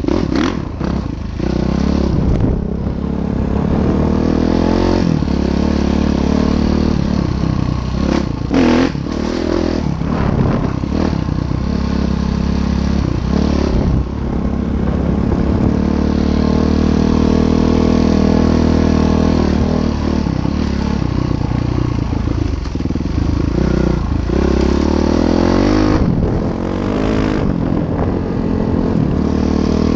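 Train passing over a railroad bridge: a steady loud rumble and hum with clattering, and sharper knocks about eight seconds in and again near the end.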